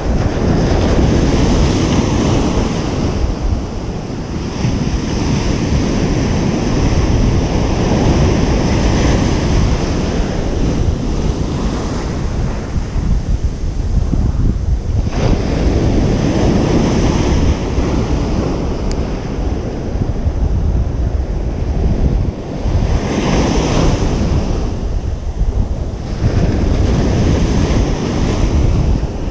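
Ocean surf breaking on a beach: a continuous rushing wash of waves that swells and ebbs every several seconds, with wind buffeting the microphone.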